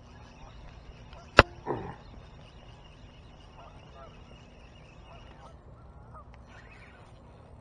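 Canada geese honking: one falling honk right after a sharp knock close to the microphone about a second and a half in, then fainter calls now and then.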